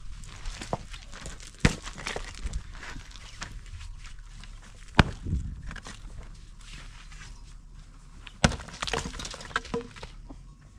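A long-handled digging tool is driven hard into stony soil three times, about three seconds apart. Each strike is a sharp knock followed by scraping and stones and earth rattling loose.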